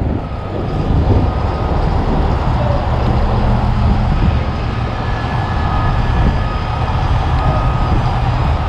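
Heavy rotator wrecker's diesel engine running steadily at a fast idle, a constant low drone with a faint high whine over it.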